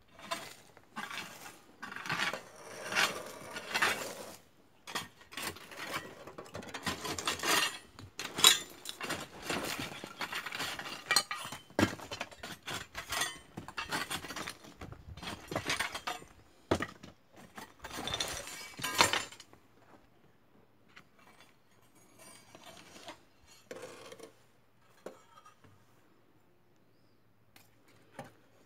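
A rod scraping and clinking against a rusty sheet of metal while prodding a snake: a busy run of knocks and scrapes, then only a few faint ones for the last third.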